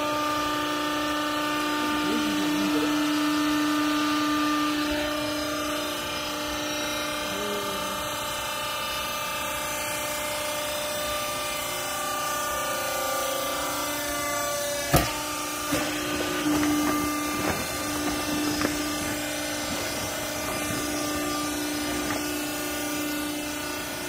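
Vertical hydraulic clothes baler's motor and pump running with a steady hum. There is one sharp knock about fifteen seconds in, then scattered knocks.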